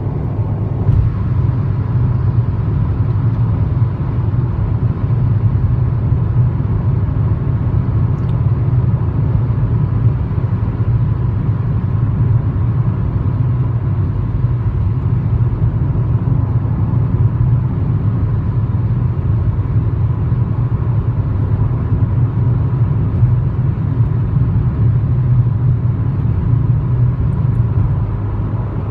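Cabin noise inside a Proton Persona 1.6 manual cruising at 110 km/h: a steady low rumble of road, tyre and engine noise, with a faint thin whine held at one pitch.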